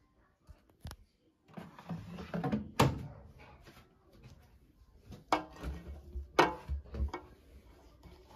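Handling noise: several sharp knocks and clunks, the loudest about three seconds in, with rustling and scraping between them.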